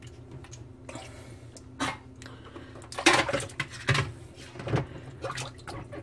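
Hand working in the wet sump of a Miele dishwasher: water splashing and plastic parts knocking in short, irregular bursts as the non-return valve and filter are fitted back in place.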